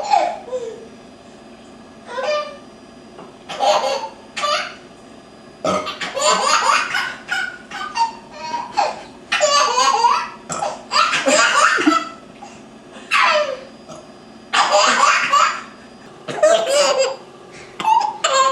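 An infant's belly laughs in repeated fits, each set off by a woman's deliberate burps heard among them.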